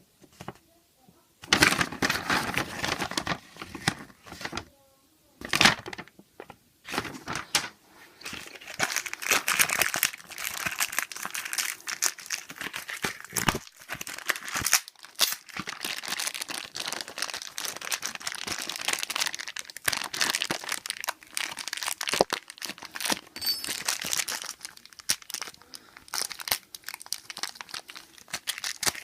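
Product packaging being opened by hand, crinkling and rustling in spells with brief pauses between them.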